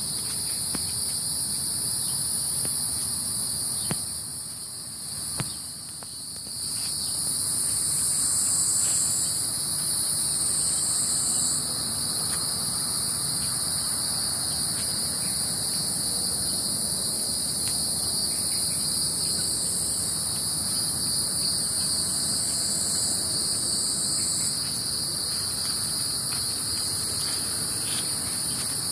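Steady, high-pitched chorus of several insects singing at once, with a brief dip in overall level about five seconds in.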